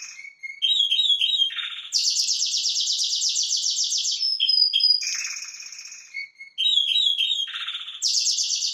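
Spanish Timbrado canary singing: fast trills and rolls in phrases that repeat, with a short whistled glide about halfway through.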